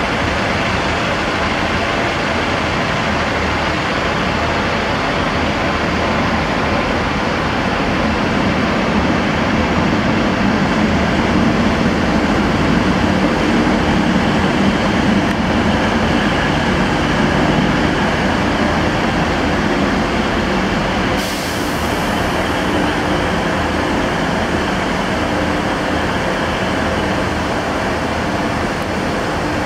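Diesel multiple-unit trains running at a station: a steady rumble of underfloor diesel engines with a low droning hum throughout.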